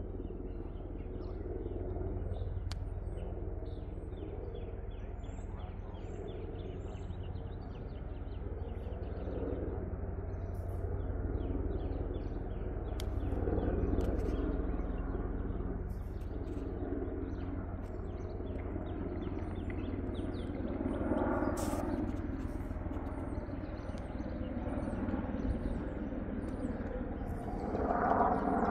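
Helicopter flying over, heard as a steady low rotor rumble with a fine fast pulse, growing louder near the end. Small birds chirp throughout.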